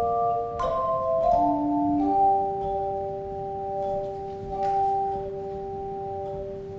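Handbell choir ringing a slow melody in chords: several notes struck in the first two seconds, another at about five seconds, and the chord left to ring on and slowly fade.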